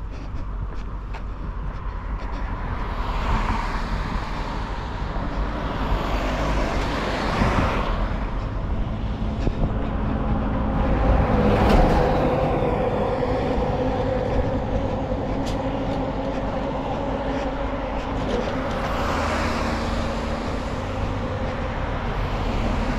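Road traffic passing close by: about four vehicles go by in turn, the loudest a small truck about twelve seconds in, its engine hum lingering as it moves off.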